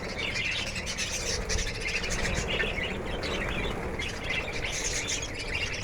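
A flock of caged lovebirds chattering: many short, high chirps overlapping without a break.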